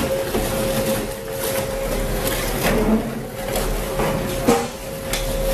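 Twin-shaft industrial shredder running with a steady whine while its hooked cutter discs tear through rubber tyres, with irregular crunches and a sharp crack about four and a half seconds in.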